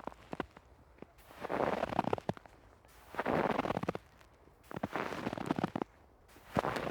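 Slow footsteps in deep snow: each step a crunching compression of snow lasting about a second, with a short pause between steps, about four steps in all.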